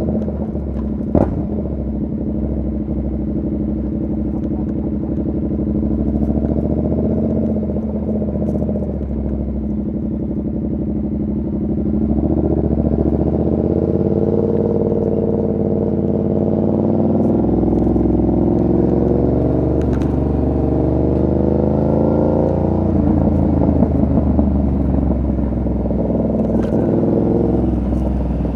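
2019 Yamaha MT-07's parallel-twin engine running under way. Its note climbs and drops again and again from about twelve seconds in, as the bike accelerates and shifts. A sharp click about a second in.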